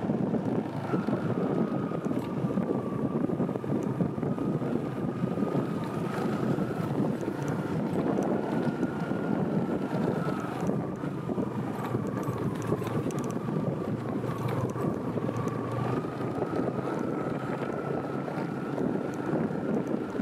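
Steady rushing of wind on the microphone, with a faint high whine that wavers slightly in pitch from about a second in.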